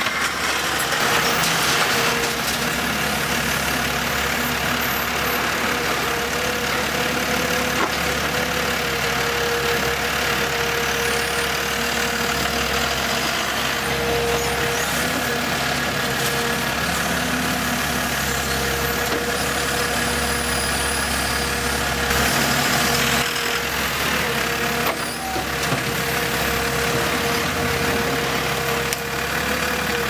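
Heavy machinery's diesel engine running steadily, with a steady mid-pitched tone over a low engine hum.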